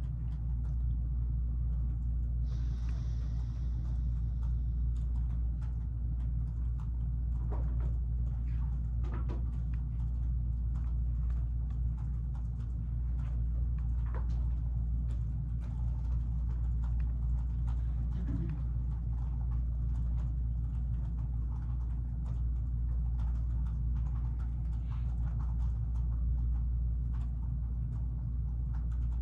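Steady low hum of room background noise, with faint scattered clicks and taps and a brief hiss about three seconds in.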